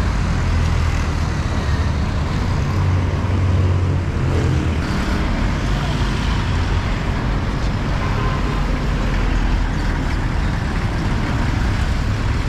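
Steady road traffic noise: a low rumble of cars and trucks on a highway.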